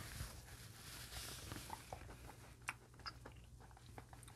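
Faint wet mouth clicks and smacks of someone chewing raw oysters, with a few sharper clicks about two-thirds of the way through.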